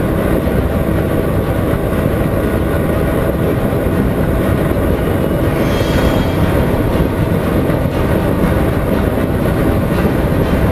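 Steady, heavy wind rush buffeting the microphone of a camera mounted on a Honda CBR 125R motorcycle riding at highway speed, with the bike's small single-cylinder engine running underneath.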